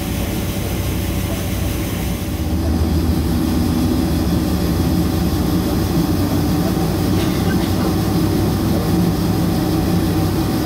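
Steady low drone of cabin noise inside a Boeing 747-400 on the ground, a little louder after about two and a half seconds.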